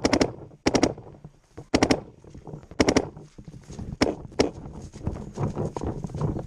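Paintball marker firing in quick strings of two or three shots, about six strings in the first four and a half seconds, then fainter pops. Thudding footsteps in grass run underneath.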